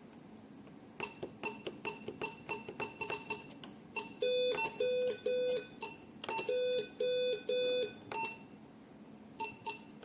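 E15 multi-parameter patient monitor beeping: first a quick run of short, irregular beeps, then an alarm tone in two groups of three evenly spaced beeps, with a few short beeps again near the end.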